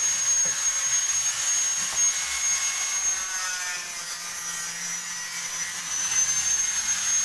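Angle grinder with an abrasive disc grinding the edge of a fibreglass frame rib. It gives a high steady whine over a rough grinding hiss, and the whine sags briefly in pitch about six seconds in as the disc bites.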